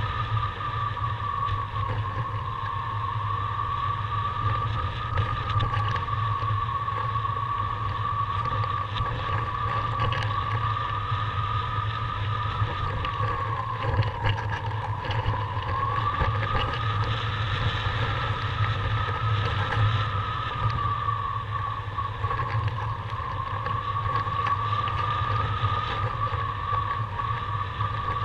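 Airflow rushing over the camera microphone of a paraglider in flight, a steady windy roar with a continuous high whistle that drifts slowly in pitch, dipping about halfway through and rising again.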